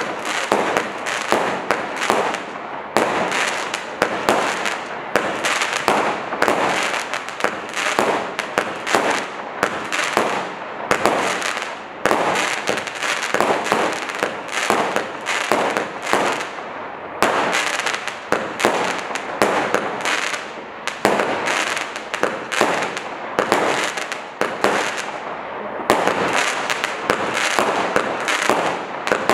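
Black Cat Kaboom 49-shot roman candle cake firing: a fast, steady run of shots, several a second, with a few brief lulls.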